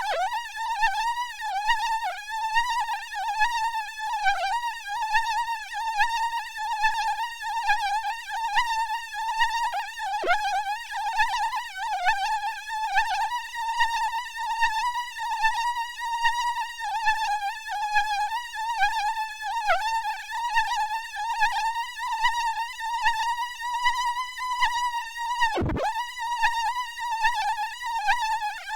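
Mosquito buzz sound effect: a high, wavering whine with several overtones, swelling and fading about once a second. About 26 seconds in, the pitch plunges sharply for an instant and springs back.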